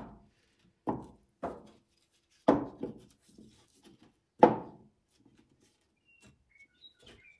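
Pieces of old reclaimed wood plank knocking as they are set down and stood against each other on a table saw's top, being test-fitted into a small open box. There are several separate wooden knocks, the loudest about two and a half and four and a half seconds in.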